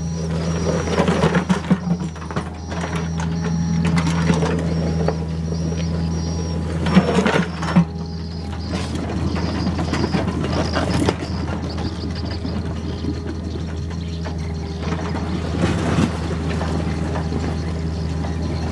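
Komatsu PC45 mini excavator working: its diesel engine runs steadily under hydraulic load while the bucket scrapes and knocks against broken rock and dirt. A few sharp clanks stand out, the loudest about seven to eight seconds in.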